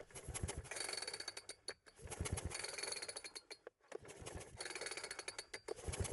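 Craftsman chainsaw's recoil starter rope pulled over and over, about every two seconds, the two-stroke engine cranking with a fast rattle of clicks on each pull without firing, an inline spark tester fitted to check for spark.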